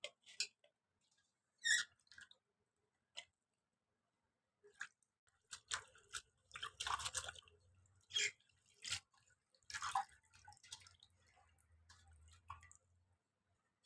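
Water splashing and dripping in a steel bowl as hands wash cut jackfruit pieces and then swish a bunch of leafy greens, in short irregular bursts.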